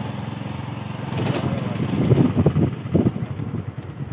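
Motorcycle engine running at low speed, a low, even putter of firing pulses.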